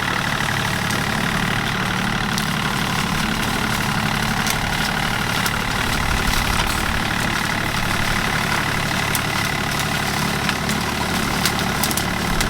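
An engine running steadily at an even speed, with a few faint ticks.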